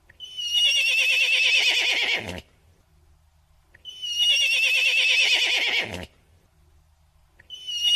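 Horse whinnying: a quavering high neigh of about two seconds that drops low at its end, played twice with a third starting near the end.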